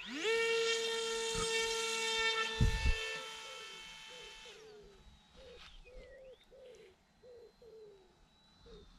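Electric motor and propeller of a ZOHD Drift pusher RC plane spooling up to full throttle at the hand launch: a steady high whine that fades away after about four seconds as the plane climbs out. A couple of low thumps come about two and a half seconds in, and in the second half a bird calls in short repeated falling notes.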